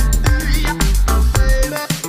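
Background music with a steady dance beat, heavy bass and a synth melody.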